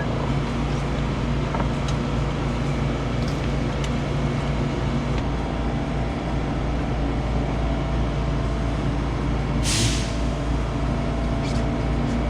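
Boat engine running steadily with a low drone, with a short hiss about ten seconds in.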